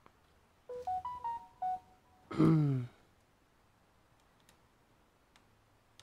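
An electronic device beeps a quick little tune of about seven short notes at different pitches. About a second later comes a louder, half-second sound that slides down in pitch.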